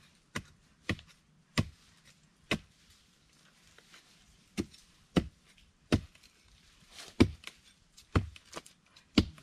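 Short-handled digging spade striking into the ground while digging out wild yam tubers: about a dozen sharp, irregular strikes, with a pause of about two seconds near the middle.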